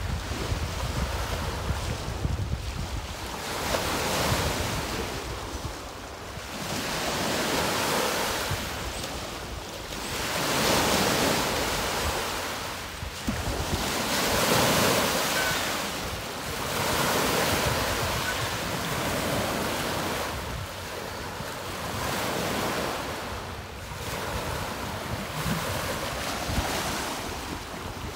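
Lake waves breaking over fallen trees and washing up a sandy beach, the wash swelling and fading every few seconds. Wind buffets the microphone, most heavily near the start.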